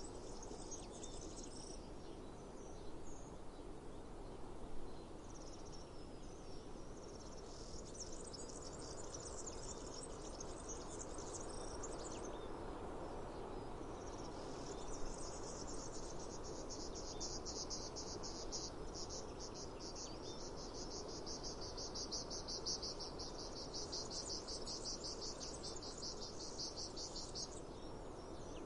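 Cicadas singing: a high, pulsing buzz that comes and goes, then settles into a long steady run of rapid, even pulses about halfway through and stops shortly before the end. A low steady outdoor hum lies underneath, with two brief knocks.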